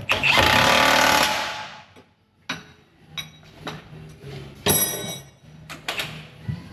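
Impact wrench hammering for about a second and a half as it runs a suspension bolt up, then a few sharp metal tool clicks and a shorter second burst about two thirds of the way in.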